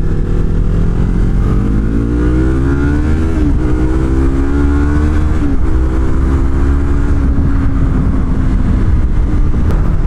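Yamaha R3's parallel-twin engine through an Akrapovic slip-on exhaust, pulling up through the gears. The pitch rises, drops at an upshift about three and a half seconds in, rises again and drops at a second shift near six seconds, then holds steady at cruising speed. Still quite quiet for an aftermarket exhaust.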